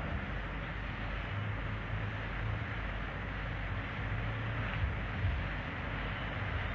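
Steady background hiss of the recording with a faint low hum that comes and goes, and no voice.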